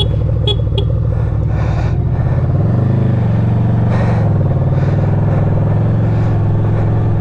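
Honda VFR800F's V4 engine running steadily. Its pitch rises and falls briefly about two and a half seconds in, and lifts again a second later, as the throttle is opened.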